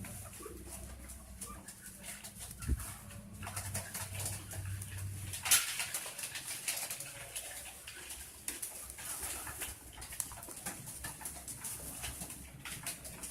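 Domestic pigeons cooing low while being fed, with scattered sharp clicks and a louder knock about five and a half seconds in.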